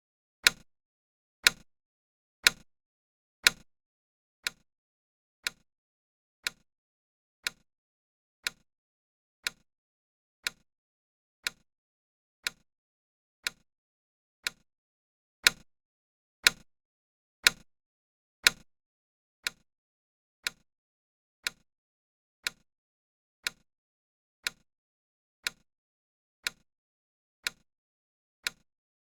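Countdown timer's clock tick sound effect: a sharp single tick once every second. A run of four ticks near the start and another four about halfway through are louder than the rest.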